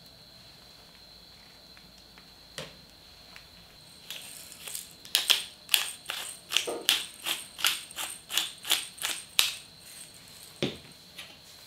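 Hand-held pepper grinder twisted over a pot of soup, grinding black pepper: about a dozen sharp grinding strokes at roughly two a second, followed by a single low knock near the end.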